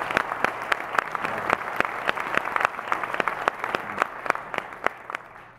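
Audience applauding, many hands clapping, the applause thinning and dying away near the end.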